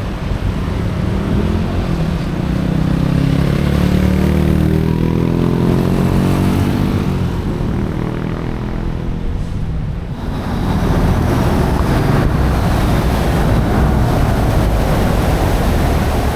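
Canal passenger boat's engine running, its pitch slowly rising and falling. About ten seconds in this gives way to a louder, steady rush of engine and water.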